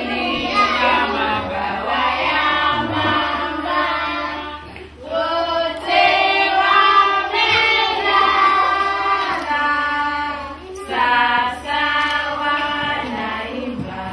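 A group of young children singing a song together, in phrases with short breaks about five and eleven seconds in.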